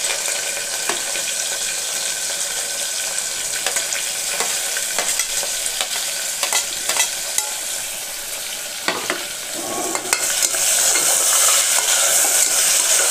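Sliced onions sizzling as they hit hot oil and ghee in a pressure cooker, with clicks and scrapes of a steel spoon pushing them off a steel plate. About ten seconds in, the sizzling grows louder as the onions are stirred in the pan.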